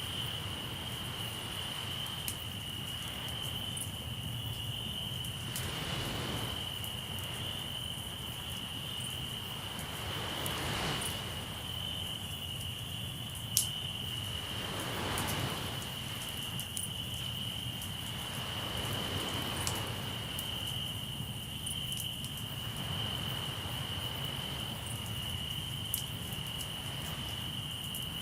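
Crickets trilling steadily on one high pitch over a crackling campfire, with scattered sharp pops, one louder about halfway. Broad washes of sea surf swell and fade every four or five seconds.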